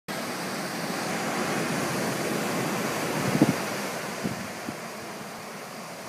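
Ocean surf breaking on a beach as a steady wash of noise, with wind on the microphone. A few short low thumps of wind buffeting come about three and a half seconds in, the first the loudest.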